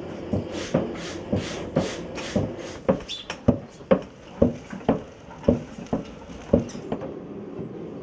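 Blacksmith's hammer knocking on iron at the anvil: a run of sharp, slightly uneven blows about two a second, which stop a little before the end.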